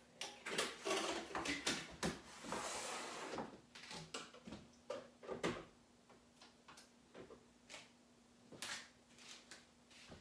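Kitchen clatter as things are handled and set down on a counter: a run of irregular clicks and knocks, with a longer noisy stretch about two seconds in that lasts a second and a half. A faint steady hum runs underneath.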